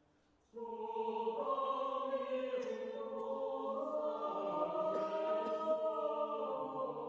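Slow background music of held, choir-like chords that come in suddenly about half a second in and change slowly.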